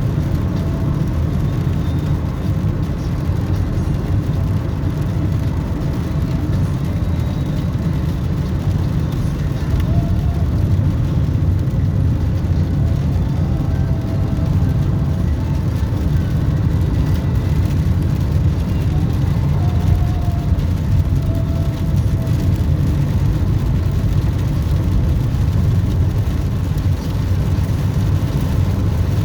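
Motor vehicle driving: a steady, continuous low rumble of engine and road noise.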